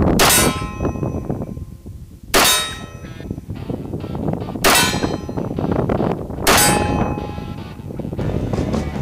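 Four pistol shots about two seconds apart, each followed by the ringing clang of a steel plate target being hit.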